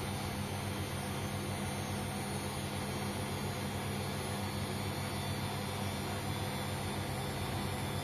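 Bosch Maxx 7 VarioPerfect front-loading washing machine running with water in the drum: a steady low hum with a constant whir over it.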